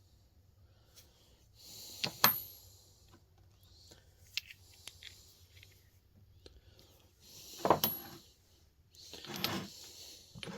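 Steel hand tools (sockets and wrenches) clinking against each other as they are handled, with a sharp ringing clink about two seconds in and another near eight seconds, between stretches of rustling handling noise.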